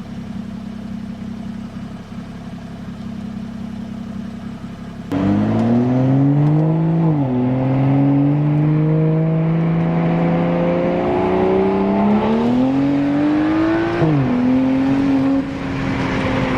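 BMW 335i's turbocharged N55 inline-six, running a JB4 tune on map 5, first at a steady low hum, then much louder about five seconds in as it accelerates hard, its note rising and dropping sharply at gear changes about seven and fourteen seconds in, then holding steady.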